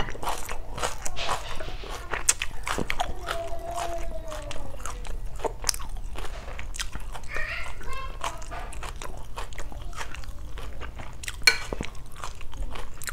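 Close-miked chewing of a mouthful of Vietnamese chicken salad (gỏi gà) with raw onion, heard as wet mouth clicks and soft crunches, with one sharper click near the end.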